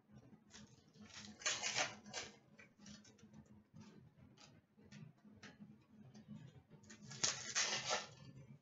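Hockey card packs being opened and cards handled by hand: light clicks and taps throughout, with two louder rustles of about a second each, about a second and a half in and near the end.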